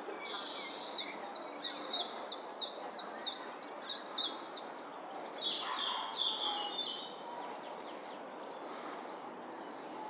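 A small bird calls about fourteen times in a row, roughly three notes a second, each a thin high note that falls sharply in pitch. The run stops after about four and a half seconds and is followed a second later by a short burst of quicker chirps, over steady background noise.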